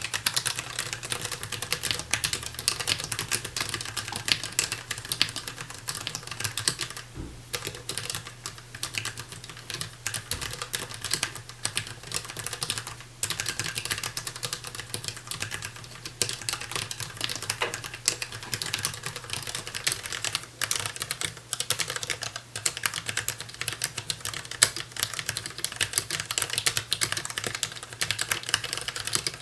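Rapid, continuous typing on a DAREU EK820 low-profile mechanical keyboard with Kailh LP red linear switches: a dense stream of key clacks, broken by brief pauses about a third and about halfway through.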